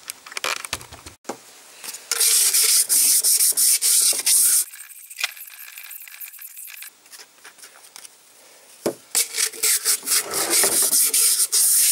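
Abrasive rubbing back and forth inside a Panhard Dyna Z1 engine cylinder bore, in two bouts of quick strokes with quieter scraping between, smoothing out deep scratches left in the bore by a coarser abrasive.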